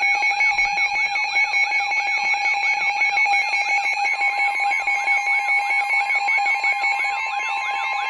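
Weather radio emergency alert: an electronic siren of rapid rising chirps, about three a second, over steady tones. About four seconds in, a steady single-pitch tone joins it, the NOAA Weather Radio warning alarm tone that comes before the spoken Flash Flood Warning.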